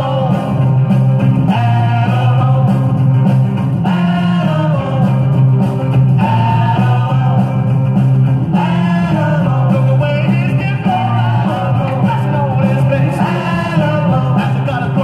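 A rock and roll song with singing, played from a 45 rpm vinyl single on a turntable.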